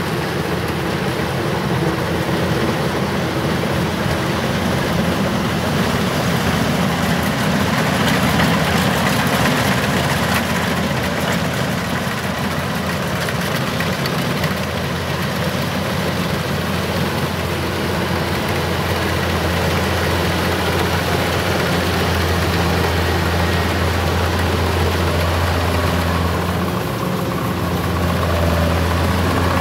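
Kubota DC-105X rice combine harvester running as it cuts and threshes rice: a steady engine drone under a broad mechanical whirr, the low drone growing stronger in the second half as the machine draws near.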